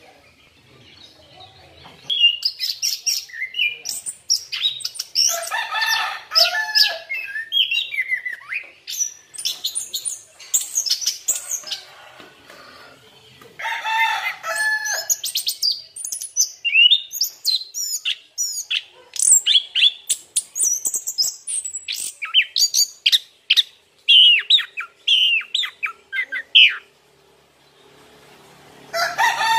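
Chestnut-capped thrush (anis kembang) singing a long, varied song of quick high whistles, trills and chatter. The song starts about two seconds in, pauses briefly near the middle, and stops a little before the end.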